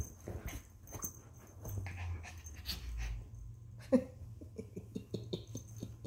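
Small white dog playing rough with a shawl over its owner's feet: cloth rustling and the dog's snuffling and breathing, with a short whine about four seconds in followed by a quick run of short breaths, about five a second.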